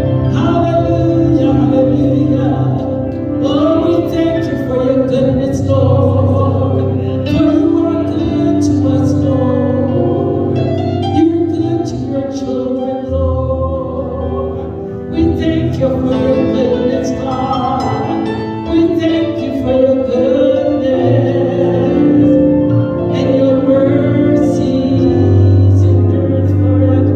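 Slow gospel worship music: held chords over long sustained bass notes that change every few seconds, with singing.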